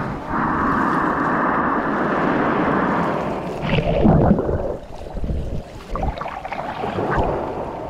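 Shallow surf sloshing and splashing over a camera held at the waterline. For the first few seconds it is a steady, muffled wash. About four seconds in comes a louder surge, and after that uneven splashing with small clicks.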